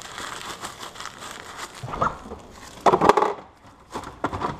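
Plastic cling wrap crinkling and rustling as it is wrapped around meat, followed by a few louder knocks and handling sounds about two to three seconds in as a refrigerator is opened.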